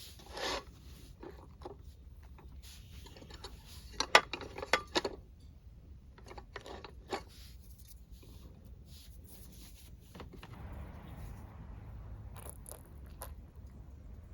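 Camp cooking gear being handled: scattered small knocks and scrapes, bunched about four to five seconds in, then a low steady rumble from about ten seconds.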